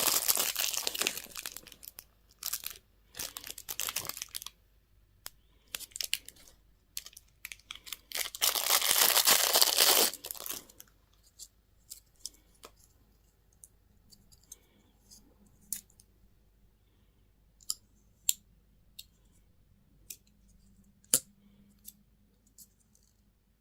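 Candy or toy packaging being torn open and crinkled in long crackly spells, then scattered small clicks and taps for the rest.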